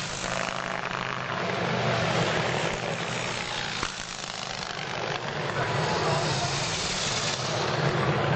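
Antique racing motorcycle engines droning as the bikes run on the track, the sound fading a little about halfway through and then swelling again.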